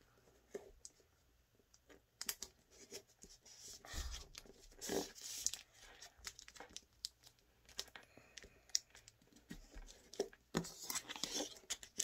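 A sheet of origami colour paper rustling and crinkling as it is folded and creased by hand, in irregular crackles with small clicks, loudest about four to five seconds in and again near the end.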